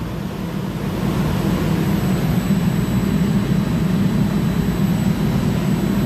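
Steady low drone of running machinery, even and unbroken, with a faint thin high-pitched whine above it.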